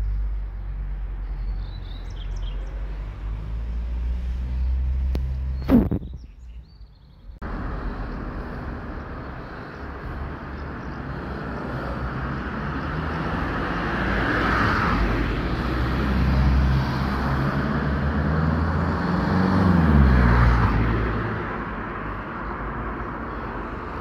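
Passing road traffic: a steady low rumble and tyre hiss that swell as a vehicle goes by about 20 seconds in, its engine pitch falling as it passes. There is a sharp click about six seconds in, followed by a brief drop-out.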